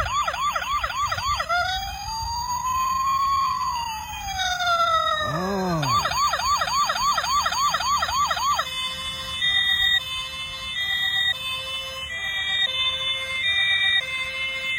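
Toy police car's electronic siren sound playing through its small speaker: a fast yelp, then a slow rising-and-falling wail, then the fast yelp again. About nine seconds in it switches to a stepped high-low pattern of alternating tones.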